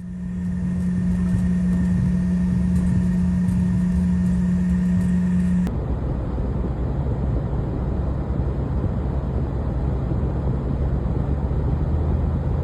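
A motor vehicle running steadily, with a constant hum over a rough low rumble. About six seconds in it changes abruptly to a rougher, lower rumble without the hum.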